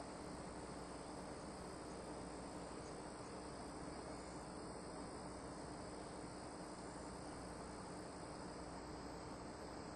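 Faint, steady background noise on the broadcast audio feed: an even hiss with a low hum and a thin high-pitched band, with nothing starting or stopping.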